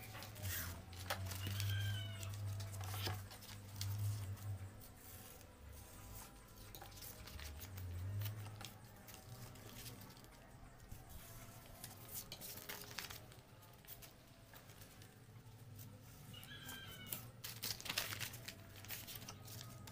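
Paper rustling and crinkling, with short scratches of a razor-blade cutter slicing paper against a wooden board. Two brief chirps come through, one near the start and one near the end.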